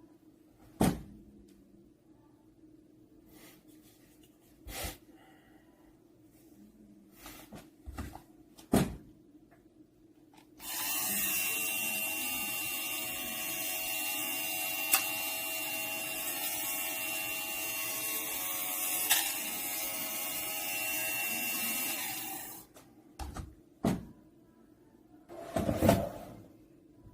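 A few sharp knocks and clicks, then a small electric motor starts about eleven seconds in and runs steadily with a constant high tone for about twelve seconds before cutting off. A few more knocks follow.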